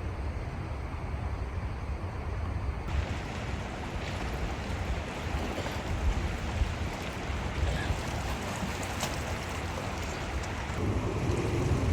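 Sea waves washing ashore, a steady surf hiss, with low wind rumble on the microphone.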